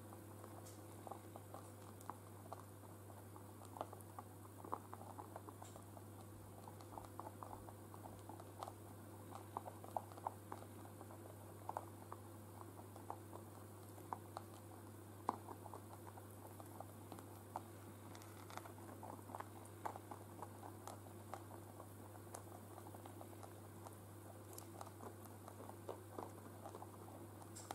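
Rabbits eating hay: faint, irregular crunching clicks, several a second, over a steady low hum.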